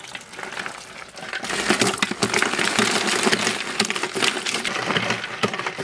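Large ice chunks sliding off a metal plate and tumbling into a big metal pot of chocolate milkshake: a dense, loud clatter of clinks and knocks that starts about a second and a half in.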